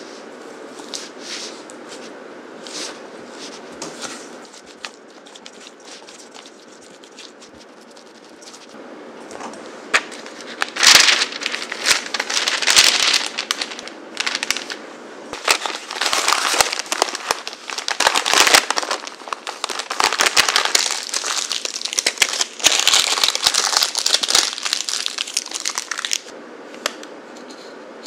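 Soft scraping clicks of a silicone spatula working butter in a stainless steel bowl, then parchment paper crinkling and rustling loudly as it is folded and rolled around the butter, from about ten seconds in until near the end.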